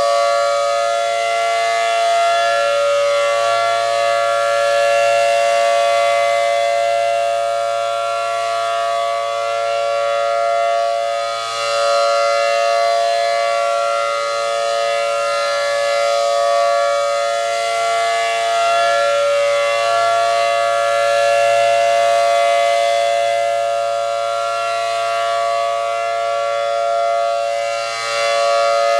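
ACA Allertor 125 rotating siren sounding a steady full-alert tone, its 10/12-port rotor giving two pitches at once as a chord. The sound swells and fades as the horn turns, dipping about eleven seconds in and again near the end.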